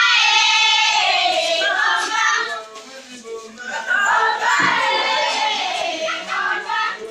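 Music with high singing voices, dropping in level for about a second around the middle.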